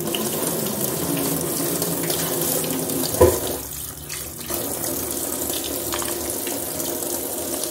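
Kitchen tap running steadily into a stainless-steel sink. There is a single sharp knock about three seconds in, and the flow sounds quieter for about a second just after it.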